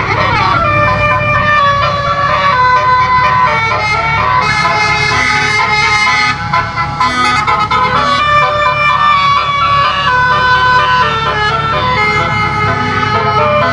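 A 12-note telolet basuri air horn set playing a melody from a MIDI module, stepping from one held note to the next, with a falling glide right at the start. A steady low hum runs underneath.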